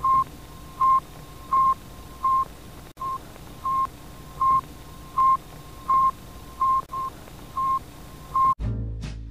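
Single-pitch electronic beeps, each short, repeating about every three-quarters of a second over a steady faint hiss. Music with a double bass starts near the end.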